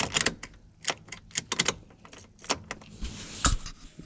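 Irregular sharp clicks and rattles of a car key and steering-column ignition switch being handled, with a louder knock about three and a half seconds in.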